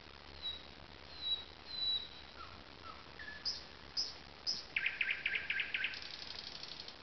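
Nightingale singing: a phrase of separate short whistled notes, then three sharp high notes, then a fast, loud rattle about five seconds in, which runs straight into a rapid high trill near the end.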